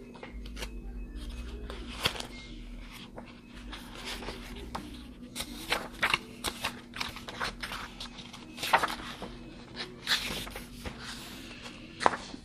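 Paper pages of a tarot deck's guidebook being leafed through: irregular rustles and soft flicks, busiest in the middle of the stretch.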